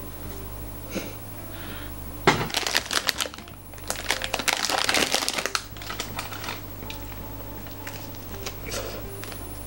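Plastic ice-cream wrapper crinkling as it is handled and torn open, in two crackly bursts of about a second and two seconds.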